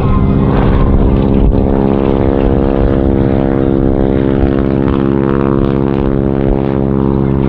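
Stearman biplane's radial engine and propeller running steadily at a constant pitch during flight.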